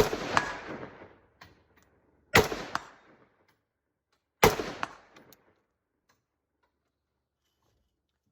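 Three rifle shots, fired about two seconds apart, each followed by a rolling echo off the surrounding terrain. A sharp tick comes a fraction of a second after each shot.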